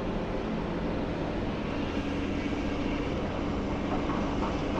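Steady, even engine drone of a high-reach demolition excavator running, with a low hum and no sharp impacts.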